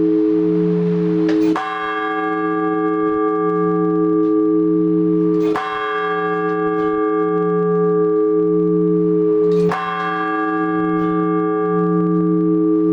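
A single large church bell struck three times, about four seconds apart, each stroke ringing on under a deep, pulsing hum. It is the measured one-bell ringing of the blagovest, which calls the faithful to the Divine Liturgy.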